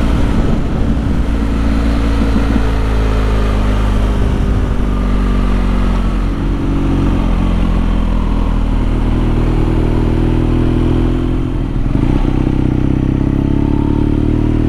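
BMW R nineT's flat-twin engine running as the bike rides along. Its note falls as the bike slows over the first six seconds or so, then rises again as it picks up speed toward the end.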